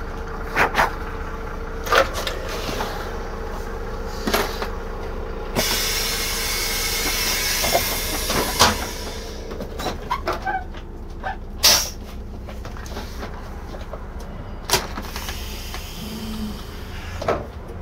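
Irisbus Récréo II coach with an Iveco Cursor diesel idling steadily, with scattered clicks and knocks around it. About six seconds in, a hiss lasts about four seconds.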